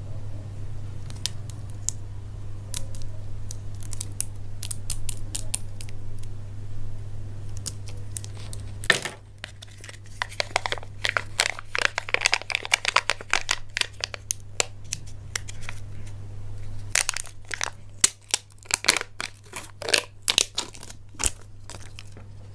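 Crinkly wrapper packaging being torn open and crumpled by hand, with dense crackling bursts and sharp ticks over a low steady hum.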